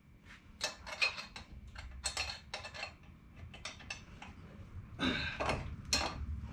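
Metal clinking and scraping as a turbocharger is handled into place on a Detroit Diesel 6-71 engine: a string of short, irregular clinks and knocks.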